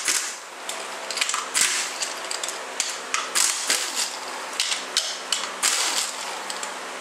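Cordless impact wrench rattling in several short bursts, with pauses between them, as it loosens the bolts holding the rear cover on an aluminium transmission case.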